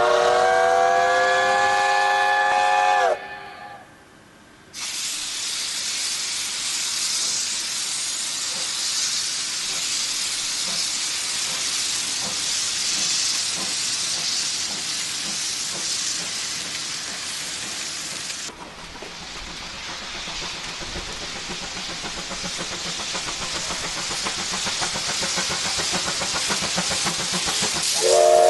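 Steam locomotive whistle sounding one long blast of about three seconds, then a loud steady hiss of escaping steam. About two-thirds of the way in the hiss drops to a softer sound that slowly grows louder.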